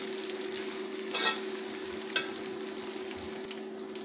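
Sliced onions sizzling in hot oil in an aluminium pot while a metal ladle stirs them, with the ladle clinking against the pot twice, about a second and about two seconds in, over a steady low hum.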